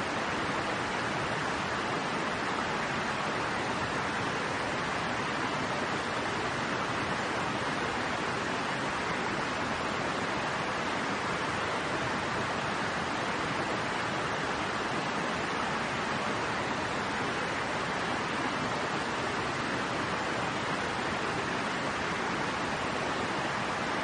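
A loud, steady, even rushing hiss that does not change in level.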